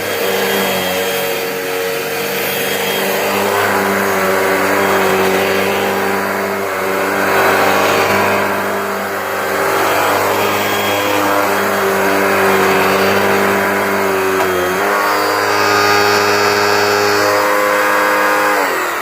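Hoover WindTunnel 2 High Capacity upright vacuum cleaner running loudly and steadily, its motor whine shifting pitch once past the middle and starting to wind down at the very end. The noise is unusually loud, which the owner suspects comes from something underneath the brush roll.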